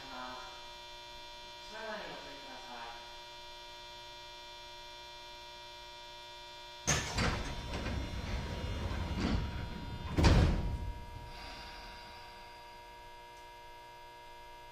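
Steady electrical hum with several constant whining tones from a stopped Tokyu 8500 series subway car. About seven seconds in, the car's doors close with a sudden thud and a few seconds of rumbling and hiss, followed about three seconds later by a second, louder thud.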